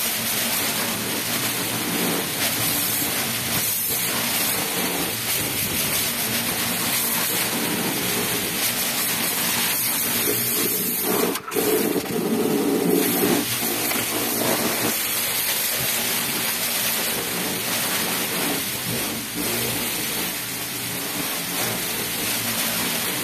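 Pressure washer running and spraying water: a steady hiss over a machine drone, breaking off for a moment about halfway through, then louder for a couple of seconds.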